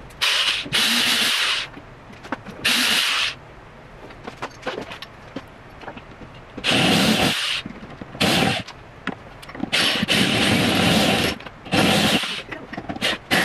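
A handheld power drill runs in about seven short bursts with pauses between, as it is worked into the wall to put up curtain-rod brackets.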